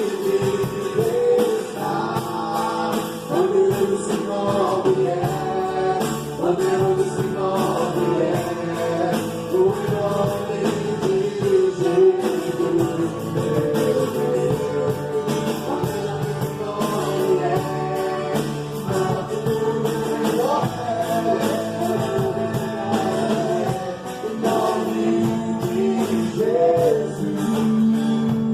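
Gospel pagode band rehearsal music: voices singing a melody over instruments and percussion at a steady level.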